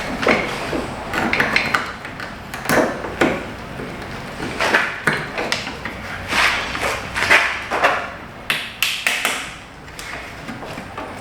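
Irregular metallic taps, clinks and knocks of aluminum A/C lines and their fittings being handled and worked into place under a minivan, a dozen or so strikes spread unevenly, some with a short ring.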